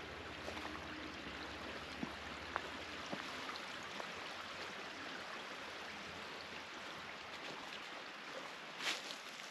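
Water running along a small canal: a steady, even rushing, with a few faint clicks over it.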